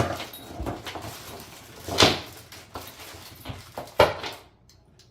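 Sharp knocks and clatter about every two seconds, with rustling and small clicks between: pressure washer parts being handled and set down during assembly.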